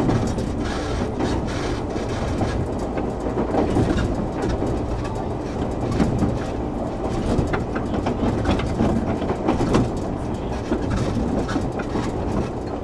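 Running sound heard inside a JR 113 series 7700-subseries electric train between stations: a steady rumble of the wheels and bogies, with irregular clacks as the wheels pass over rail joints.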